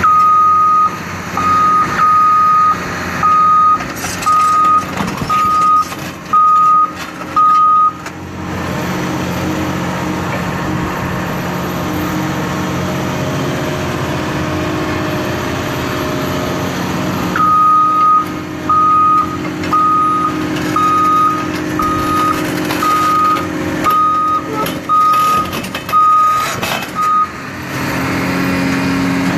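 Backup alarm on heavy demolition machinery beeping in a single steady tone, a little more than one beep a second. It sounds for about the first third, stops, then starts again past the middle and runs until near the end, over the continuous drone of the machine's engine.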